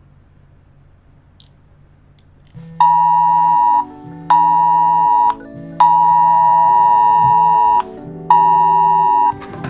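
Alternate, fan-made Wireless Emergency Alert attention signal: a loud two-tone alarm near 1 kHz, starting about two and a half seconds in. It pulses in the WEA cadence of one-second tones and a two-second tone with short gaps between, over synthesized keyboard chords.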